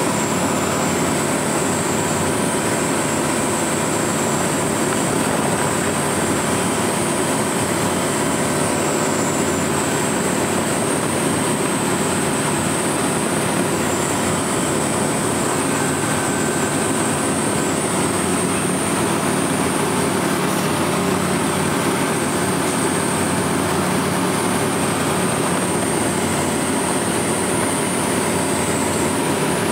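Dynamic WT9 ultralight's engine and propeller droning steadily in cruise flight, heard from inside the cockpit, with a constant rush of airflow and a faint high whine over it.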